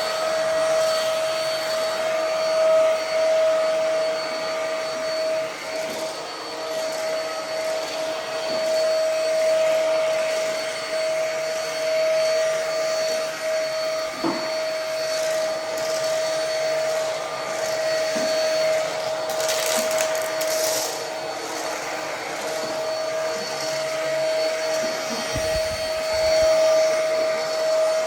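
Ozito PXC 18V cordless stick vacuum running steadily with a constant motor whine. There are a few brief knocks, and a short surge of hiss about twenty seconds in.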